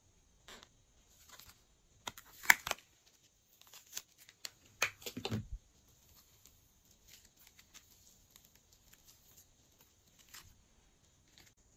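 Pink slime squeezed, stretched and pulled by hand: a run of sticky clicks and crackles, loudest between about two and five seconds in, one of them falling in pitch, then softer small crackles as the slime is twisted into a swirl.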